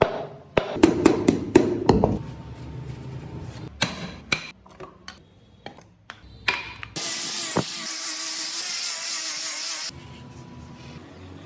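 Woodworking tool sounds: a quick run of sharp knocks in the first two seconds, scattered clicks after them, then a steady hiss for about three seconds that cuts off suddenly.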